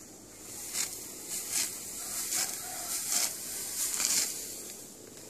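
Dry, ripe rice stalks and straw rustling and crunching in a series of short swishes, about one every half second, as rice is harvested by hand.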